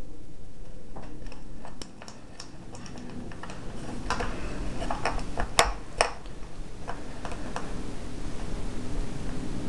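Spring-loaded mouse traps on a board being handled and set by hand: a scattered series of small clicks and taps, with two sharper clicks close together about halfway through.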